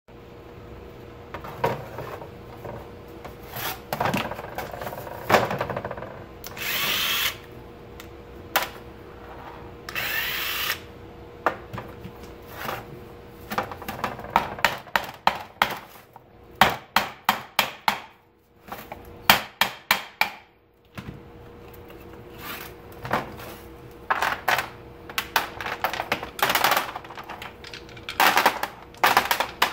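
Bunches of sharp taps from a mallet on the metal housing of a boat's rudder bearing, knocking it loose for servicing, with two hissing bursts of about a second each in the first third. Near the end the bearing's rollers clatter out onto a metal tray, over a faint steady hum.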